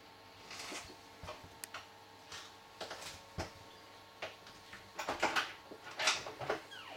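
Irregular light clicks, taps and short scuffs of handling and movement in a small room, growing busier and louder near the end.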